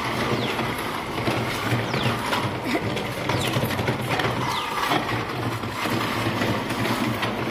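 Hard plastic wheels of a child's ride-on tricycle and a second ride-on toy towed behind it, rolling and rattling over brick paving stones.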